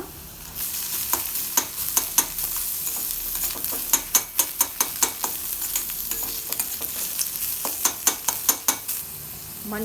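Boiled prawns and sautéed onions sizzling in hot oil in a kadai, stirred with a spatula that clicks and scrapes against the pan many times.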